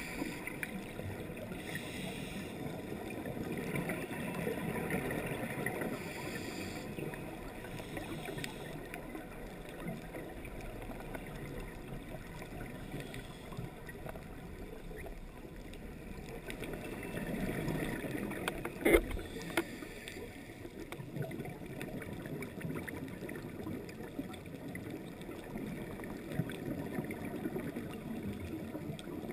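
Muffled underwater sound heard through the camera housing: scuba divers' exhaled bubbles gurgling, swelling and fading, with a sharp knock about two-thirds of the way through.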